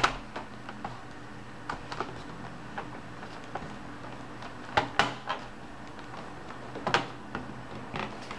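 Laptop parts clicking and tapping as they are handled and fitted back in place: a few separate sharp clicks, the loudest at the start, about five seconds in and about seven seconds in.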